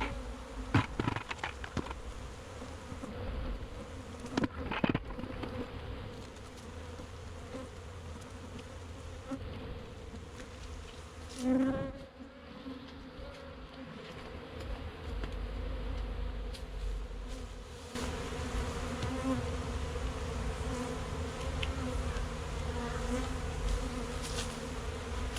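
Honeybees buzzing in a steady hum: returning foragers at the site of a removed colony. One bee's buzz swells loudly and drops in pitch about halfway through, and a few sharp knocks come in the first five seconds.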